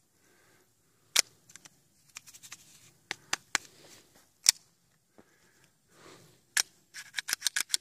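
Mud- and sand-caked Beretta 92FS pistol being worked by hand: sharp metallic clicks and clacks of the slide and action. They come singly through the first few seconds, then as a quick run of about eight near the end, with faint scraping in between. The slide is hesitating and not going fully into battery because of the packed dirt.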